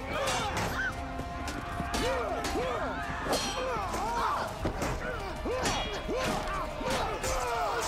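Sword-and-shield melee: many men shouting and yelling battle cries, broken by several sharp clashes and thuds of weapons striking shields.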